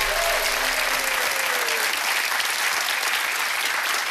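Studio audience applauding steadily, with the tail of a short music sting fading out in the first two seconds.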